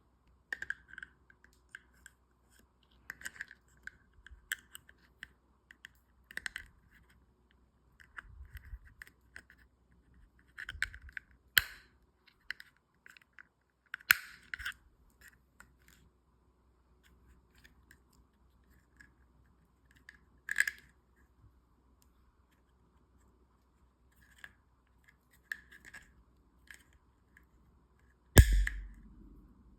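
Small clicks and scrapes of a handgun and its magazine being handled, with a few sharper clicks and one loud knock near the end.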